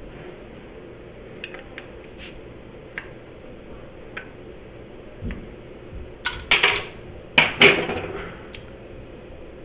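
Kitchen clatter: scattered light clicks and knocks of cookware and utensils over a steady low hum, with two louder clattering bursts a little past the middle.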